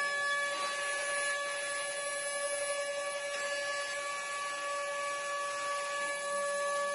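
A mini CNC router's 800 W spindle runs with a steady whine on fixed pitches while its bit mills a wooden board, over an even hiss of the cut.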